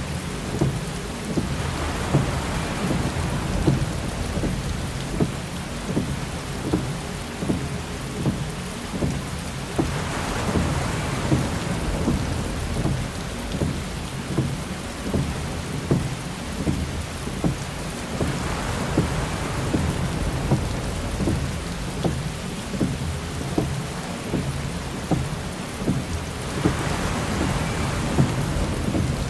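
Heavy rain drumming on a car, with windshield wipers sweeping and knocking about once every second and a half over a steady low rumble. The rain swells louder about every eight seconds.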